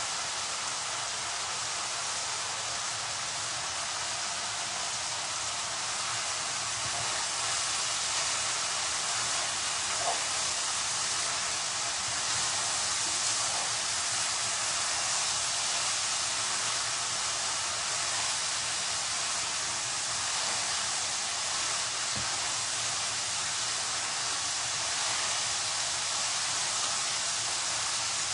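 Curry masala frying in oil in a pan, a steady sizzle, with a faint tap about ten seconds in.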